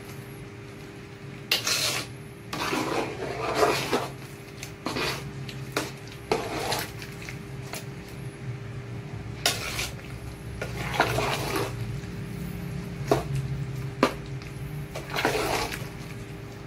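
A ladle stirring a large metal stockpot of thick pork-blood stew, scraping and knocking against the pot's side in irregular strokes with some sloshing. The stirring keeps the freshly added blood from clotting. A steady low hum runs underneath.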